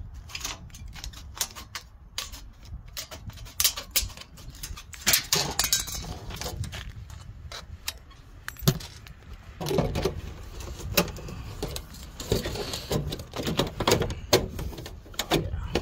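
Hand tin snips cutting thin perforated aluminum gutter guard: a run of sharp, irregular metallic snips and crinkles, with the light metal piece rattling as it is handled and set onto the gutter near the end.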